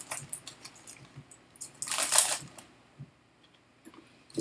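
Whisky tasting glasses handled on a table: small clicks and taps of glass, with one louder brief scuff about two seconds in.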